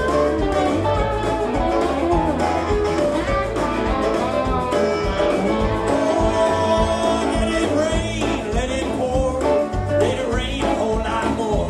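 Background music: a song with guitar, a singing voice and a steady beat.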